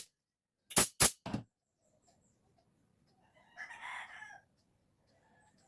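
Four sharp knocks or clicks in the first second and a half, then a rooster crowing in the background for about a second.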